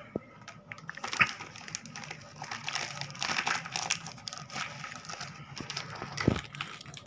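Clear plastic packaging of a toy cake set crinkling and rustling as it is handled, with scattered small clicks and a single thump about six seconds in.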